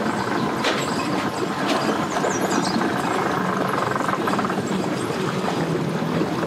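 Yamaha 200 outboard motor running steadily at idle as the boat manoeuvres at low speed.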